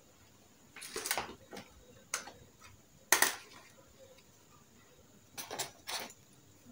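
Handling noise from a zippered fabric pouch as a body lotion bottle is put into it: a handful of short clicks and rustles, the sharpest about three seconds in.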